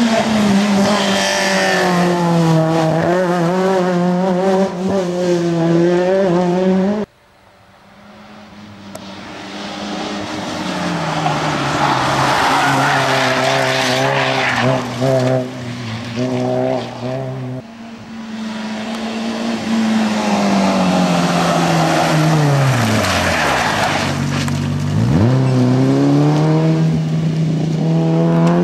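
Rally cars driven flat out on a tarmac stage, one after another. Each engine revs high and drops through gear changes as the car brakes into a bend and accelerates out. The sound cuts off suddenly about seven seconds in, then the next car comes up from quiet.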